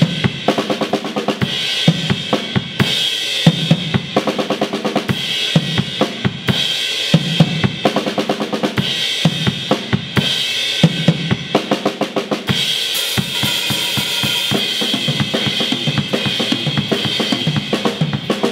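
Acoustic drum kit played by hand with sticks: bass drum, snare and cymbals in a steady groove broken by quick fills every second or two. About two thirds of the way in the cymbals ring on in a continuous wash over the beat.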